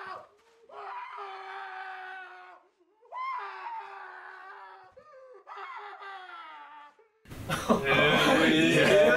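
A man screaming in pain in three long, wavering cries with short breaks between them, acted as a torture victim. About seven seconds in, a loud burst of harsh video-static noise cuts in and takes over.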